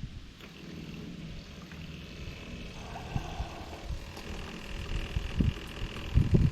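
Gasoline draining from a scooter's fuel system into a jug, a steady low rush, with a few dull knocks near the end.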